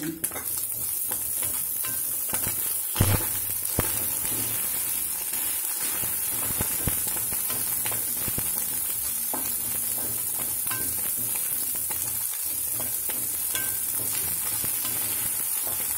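Diced carrot, green beans and scrambled egg sizzling in oil in a kadai over a high flame, with a spatula scraping and tapping against the pan as they are stirred. A louder knock of the spatula comes about three seconds in.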